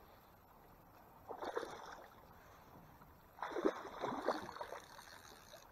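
Hooked brown trout thrashing and splashing at the water's surface beside the boat while being played on a rod, in two bouts: a short splash just over a second in and a longer, louder flurry from about three and a half seconds.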